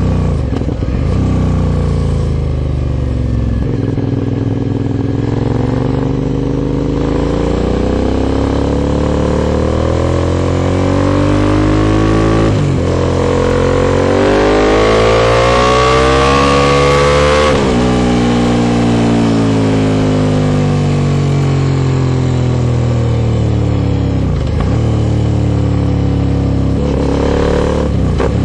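Aprilia Shiver 750's V-twin engine through an Arrow Dark Thunder aluminium full exhaust, heard from on board while riding. The revs climb and fall through several gear changes and throttle closings. The longest and loudest pull comes a little past halfway, and the revs drop off sharply at its end.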